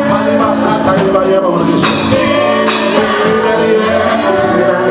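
Live gospel praise band playing with sustained keyboard chords and drums, a singing voice carrying over it.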